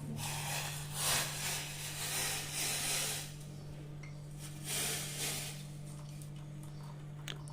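Hot guava-leaf decoction being poured through a strainer: a soft splashing hiss that comes in three short swells.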